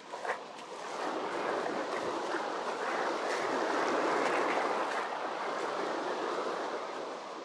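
Surf: a small wave breaks and washes up the beach in a long rush of water. It builds over the first few seconds, is loudest around the middle and fades near the end.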